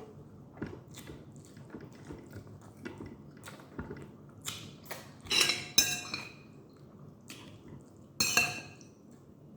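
Dishes and cutlery clinking while someone eats: scattered light clicks, then a few louder clinks with a short metallic ring about five to six seconds in and again near eight seconds.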